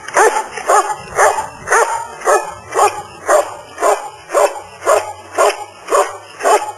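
A dog barking steadily and rhythmically, about two barks a second, at a helper hidden in a blind. This is the hold-and-bark of Schutzhund protection work, where the dog guards the found helper by barking without biting.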